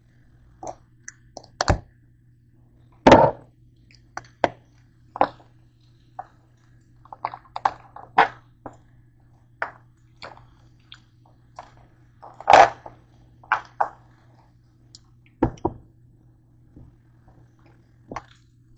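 Kitchen handling sounds: irregular knocks, taps and clinks of utensils and containers on a counter over a steady low hum. The loudest knocks come about three seconds in and about twelve seconds in. Near the end a plastic Cool Whip tub is set down on the counter.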